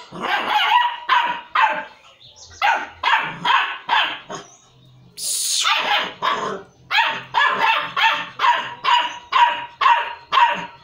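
Beagle-type puppy barking over and over in short barks, about two a second, with a couple of brief pauses. A short hissing, falling sound about five seconds in.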